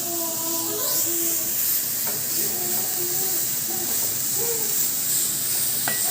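Grated carrots frying in ghee in a pan, with a steady hiss of sizzling.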